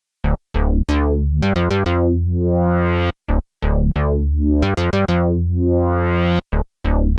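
Arturia JUN-6V, a software emulation of the Roland Juno-60 analog polyphonic synthesizer, playing a patch of short, plucky notes. Each note starts bright and quickly darkens as the filter closes. The notes come in a broken rhythm with brief gaps, starting about a quarter second in.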